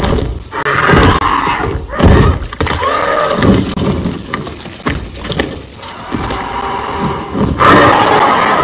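Film sound-effect calls of giant pterosaurs: a series of loud cries, one rising and falling in pitch about three seconds in, and another loud cry near the end.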